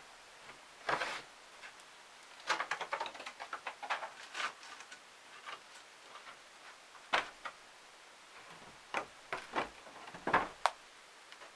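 Scattered light knocks, clicks and brief scrapes at an irregular pace. There is a cluster of small clicks two to four seconds in, and the louder knocks come about a second in, about seven seconds in, and several more around ten seconds.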